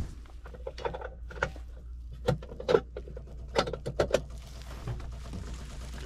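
A series of sharp clicks and knocks from hands working around the open air-handler cabinet. Near the end a faint, fast, even ticking starts: the Trane TAMX air handler's stepper motor running its set-and-reset routine on power-up.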